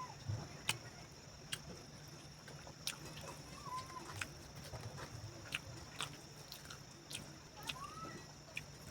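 Close-up eating sounds: irregular sharp clicks and smacks of chewing, about one or two a second, over a steady high-pitched hum.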